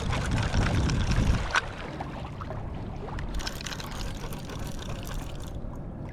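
Water sloshing and splashing around a fishing kayak, louder with a low rumble for the first second and a half, with a few sharp clicks.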